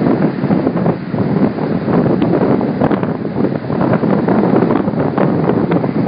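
Strong northeast wind, blowing 25+ mph, buffeting an iPhone's microphone in uneven gusts, with the surf beneath it.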